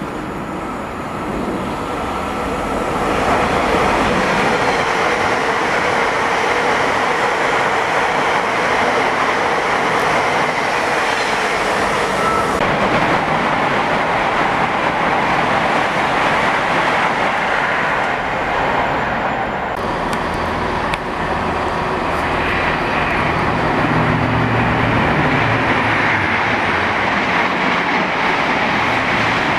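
Passenger trains passing through a station: a steady rush of wheels on rail that builds over the first few seconds and holds, with a clickety-clack of wheels over rail joints and a low hum about two-thirds of the way through.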